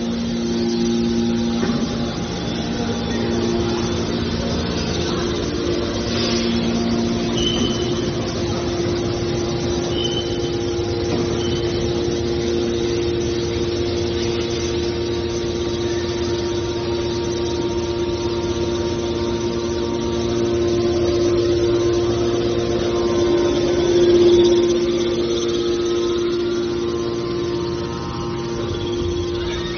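Hydraulic scrap metal baler running: a steady hum from its electric motor and hydraulic pump, swelling briefly about three-quarters of the way through, with a few short high squeaks in the first half.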